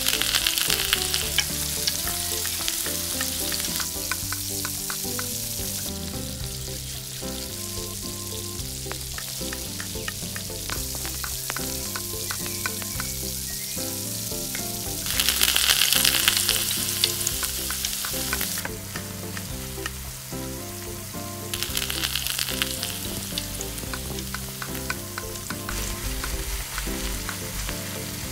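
Food frying in hot oil in a miniature pan: a steady sizzle with light clicks of a utensil stirring, swelling louder about halfway through and again a little later.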